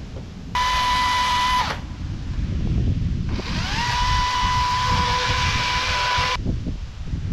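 Power saw cutting a log in two runs: a short burst of about a second, then a longer run of about three seconds whose motor whine climbs quickly to a steady pitch. A low rumble from the cut sits under both.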